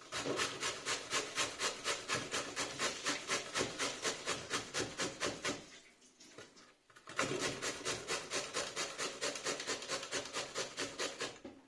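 Raw pumpkin being grated on a coarse hand grater: rhythmic rasping strokes, about four a second, in two runs with a pause of about a second and a half in the middle.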